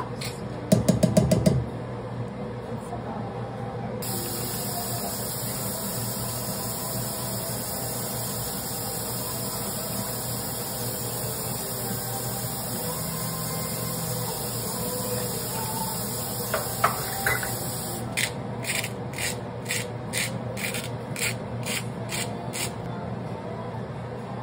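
Dry pearl barley grains clattering into a stainless steel saucepan from a measuring cup, then a long steady hiss, and near the end a hand-twisted spice grinder crunching about a dozen times over the pan.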